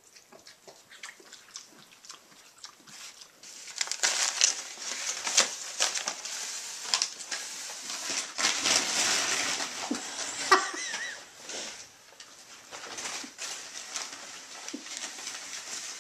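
Brown packing paper rustling and crinkling as a pet pig picks it up and carries it in its mouth, starting about four seconds in and loudest through the middle, with one sharp click about ten and a half seconds in.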